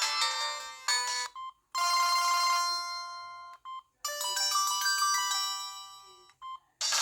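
Samsung SGH-T509S mobile phone ringtones playing one after another. A melody ends about a second in, then come two short phrases of held, chiming notes that each fade out, with short beeps in the gaps. A new, faster rhythmic tone starts right at the end.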